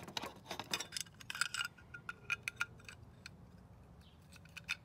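Small clicks and light taps of a Raspberry Pi 4 board being seated into the bottom plate of a black aluminium passive cooling case. The clicks come thick for the first couple of seconds, then thin out to a few ticks, with a short cluster near the end.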